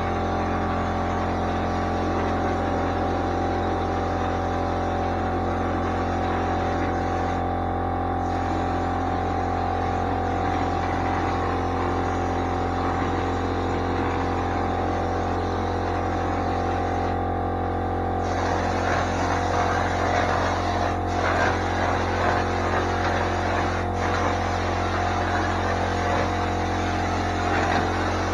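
Air compressor running steadily with a low hum, under the hiss of air through a drywall texture hopper gun spraying joint compound. The hiss breaks off briefly about eight and seventeen seconds in, and from about eighteen seconds it turns rougher and a little louder.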